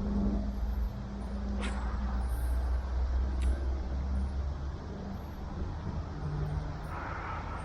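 Low steady rumble of wind on the microphone, with a faint steady hum that fades out after about two seconds and a couple of short sharp clicks.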